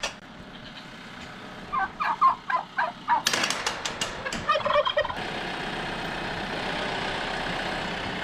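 A turkey gobbling: two quick runs of short rolling notes, with a rapid rattle of sharp clicks between them. About five seconds in, a steady drone sets in.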